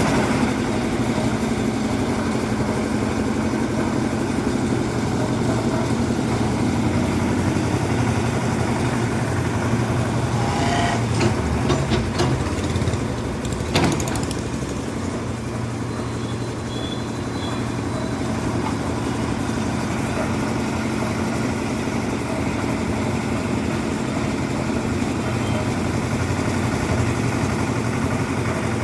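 Concrete mixer's engine running steadily, with a few sharp knocks about halfway through.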